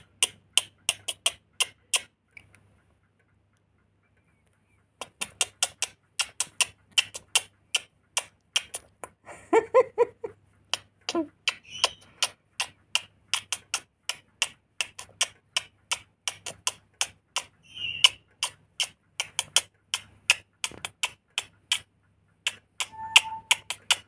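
A steady rhythm of finger snaps, about three a second, beaten for a rainbow lorikeet to bob to. The snaps stop for a couple of seconds early on, then run on, with a few short calls from the lorikeet among them.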